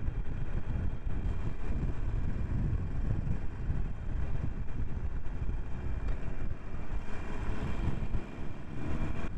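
Harley-Davidson Iron 883's air-cooled 883 cc V-twin running steadily at cruising speed, heard from the rider's own bike with wind noise on the microphone.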